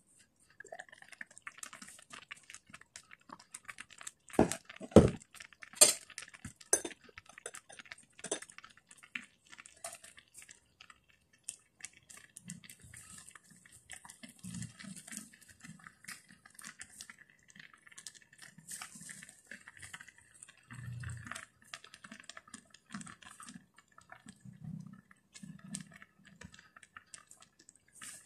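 Cookware handled with a few sharp clinks and knocks, as the pot's glass lid comes off, followed by fresh moringa leaves rustling and crackling as they are dropped by hand into a pot of cooking noodles, with soft knocks against the pot.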